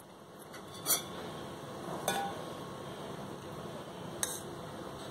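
Metal spoon clinking three times against stainless steel bowls as melted butter is poured out of one bowl into another. The middle clink leaves a short ring.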